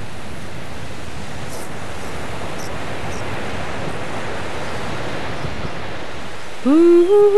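Steady, even wash of surf. Near the end a wordless humming melody comes in, sliding up into a held, wavering note.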